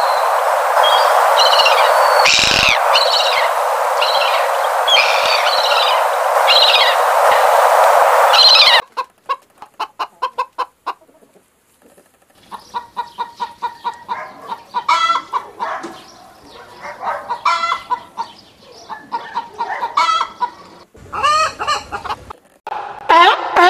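Gull calls over a steady rushing noise. About nine seconds in, this cuts to hens clucking in short repeated runs, which grow busier toward the end.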